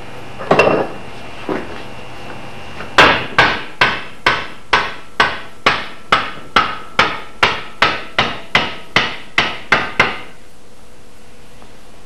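A wooden axe handle being struck on its end to drive it further into the eye of a steel axehead held in a vise. There is a single knock about half a second in, then an even run of about seventeen blows, roughly two a second, each with a short ring, starting about three seconds in.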